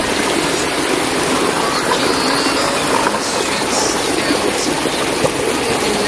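Steady, loud rush of falling and running water from the waterfall and its stream.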